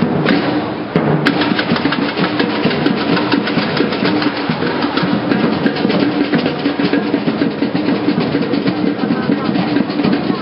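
Street drum troupe of bass drums and snare drums playing a continuous, driving rhythm, with rolls.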